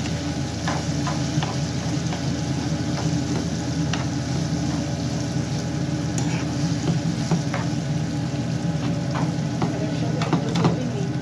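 Browned vermicelli noodles sizzling in a little water in a nonstick frying pan as a spoon stirs and scrapes them. The steady sizzle carries scattered clicks of the spoon against the pan, coming more often near the end.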